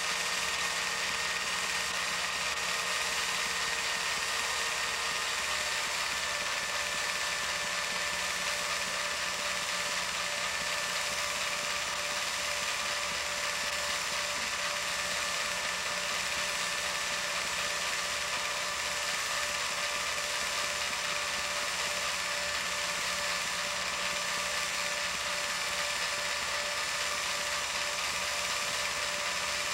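Film projector running: a steady mechanical whirr with a fast, even clatter from the film-advance mechanism.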